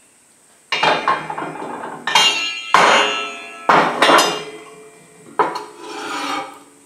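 Forged steel pieces set down and shifted on a metal-topped workbench: about six sharp clanks with a ringing metallic tone, with scraping and sliding between them.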